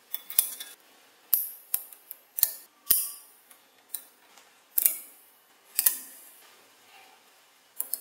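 Small magnetic balls clicking as they snap against one another while the model is pressed and adjusted by hand: about ten sharp metallic clicks with a brief ring, irregularly spaced, a quick cluster of them at the start.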